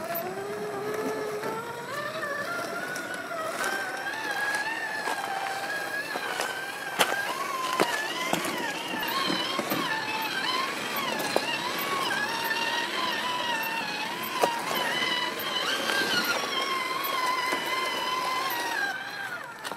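Traction Hobby KM5 1/8-scale RC rock crawler's electric motor and geared drivetrain whining, the pitch rising and falling with the throttle as it crawls over rock. A few sharp knocks cut through, the loudest around a third of the way in and again past the middle.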